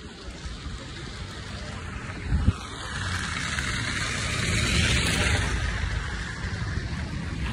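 A car passes close by on a rain-soaked road, its tyres hissing on the wet surface: the hiss swells to a peak about five seconds in and then eases off. A steady low rumble runs underneath, with a single thump about two and a half seconds in.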